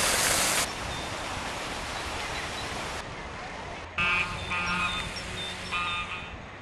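Water spilling over a small stone weir, rushing loudly for the first half-second, then a quieter steady hiss. About four seconds in come three short bursts of duck quacking.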